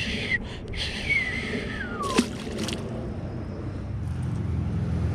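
A pickerel released by hand into the water, with a short splash about two seconds in, after a falling whistle. A low rumble of a passing vehicle builds near the end.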